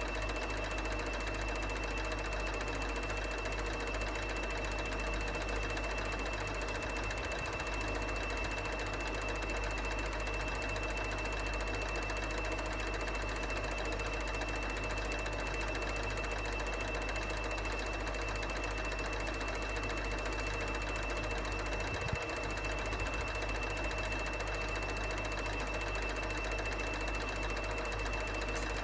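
ELMO F-120 film projector running: a fast, steady mechanical clatter from its film-advance mechanism over the hum of its motor and fan, with a thin steady high whine.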